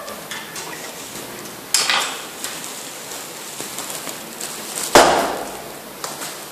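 Knocks and light clicks on a steel stairwell railing as a cat climbs its bars. Two louder knocks come about two and five seconds in, the second the loudest, with a short ringing tail.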